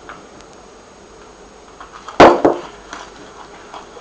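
Quiet at first, then two sharp knocks of kitchenware about a quarter second apart about two seconds in, followed by light clinks as a spring whisk stirs batter in an enamel pot.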